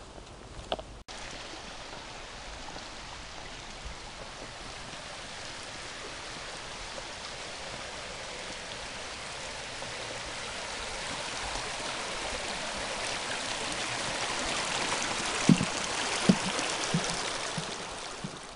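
Forest creek rushing over rocks, a steady rush of water that grows louder as it is approached. A few soft thumps sound near the end.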